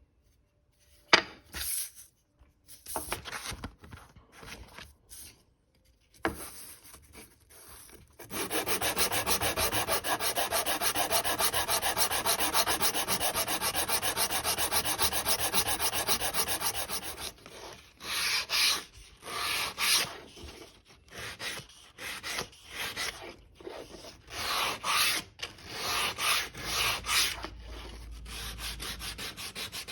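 A small block of cherry wood being sanded. A sharp knock comes about a second in, then scattered strokes, then a run of rapid, even strokes lasting about nine seconds, and then separate strokes again.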